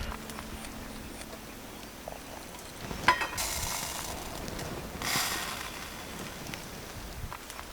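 A sharp click about three seconds in, then two short rustles, one right after the click and another about two seconds later.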